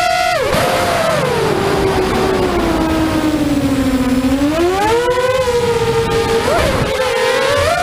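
Brushless motors and propellers of a 5-inch FPV racing quadcopter whining in flight, the pitch dropping sharply about half a second in, sinking lower until about four seconds, then rising again and wavering near the end.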